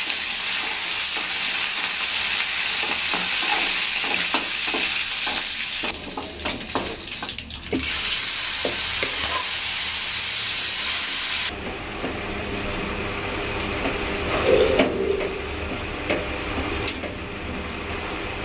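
Hot oil sizzling hard in an aluminium kadai as a tempering of mustard seeds, cumin, fenugreek, garlic, dried red chillies and curry leaves fries, with a steel spoon clicking and scraping against the pan. About eleven seconds in the sizzle drops off sharply, leaving the quieter sound of a thick greens-and-mango curry being stirred, with scattered spoon clinks.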